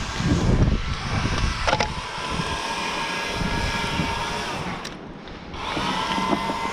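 Top-handle chainsaw running at idle just after a cut, with a few sharp knocks in the tree as the cut section of stem is caught on the rigging rope.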